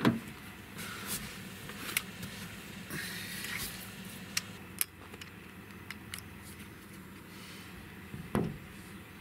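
Handling noise at a pickup truck: a sharp knock at the start, then scattered clicks, knocks and rustling as an air rifle is lifted out of the cab and rested on the roof.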